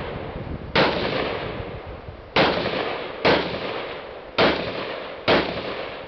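Five rifle shots from a scoped AR-style carbine, fired one at a time at uneven spacing, each followed by a long fading echo.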